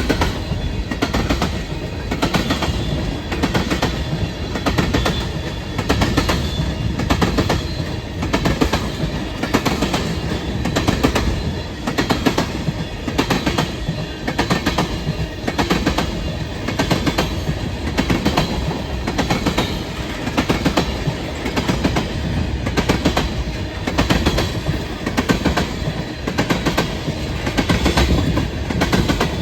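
Freight train of tank cars rolling past, the wheels clicking over the rails in a continuous clickety-clack with a steady rumble.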